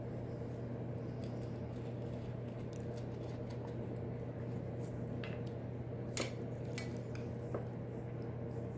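Metal pie server scraping and lightly clinking against a glass pie plate as a slice of pie is cut loose and lifted, with two sharper clinks a little past the middle, over a steady low hum.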